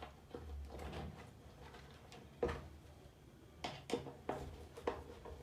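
Scattered small clicks and knocks of electrical wires and a light switch being handled and fitted, a few close together near the end, over a faint low hum.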